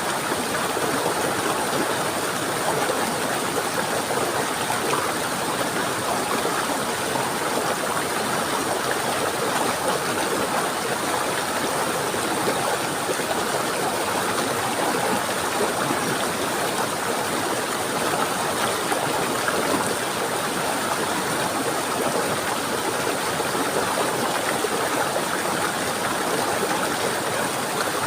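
A stream of water rushing and babbling steadily over rocks, with no breaks or changes.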